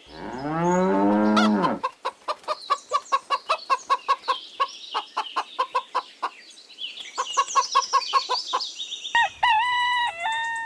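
Farm animal calls: a cow moos once, then hens cluck in quick, rapid notes for several seconds, and a rooster crows near the end.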